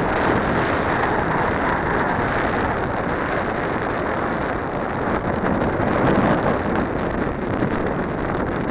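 Heavy wind buffeting the microphone of an action camera mounted on a radio-controlled airplane's wing: a steady rushing noise with no clear tone, swelling briefly about six seconds in.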